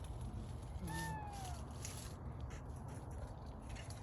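Cat stuck up a tree crying out: one falling meow about a second in.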